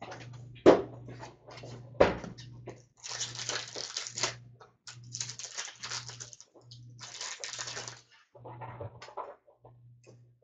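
Rustling and tearing of trading card packs and cardboard being handled, in irregular bursts, with two sharp knocks about one and two seconds in.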